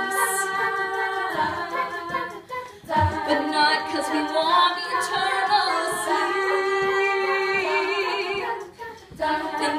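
All-female a cappella group singing held chords in close harmony, with two short breaks between phrases, about two and a half seconds in and near the end.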